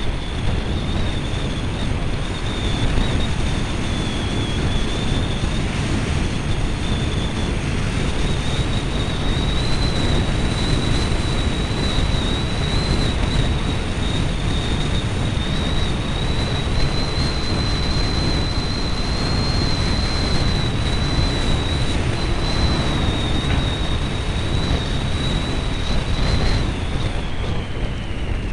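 Wind rushing over a helmet camera's microphone on a moving 50cc scooter, an uneven low rumble throughout. A thin high whine runs under it and falls away near the end.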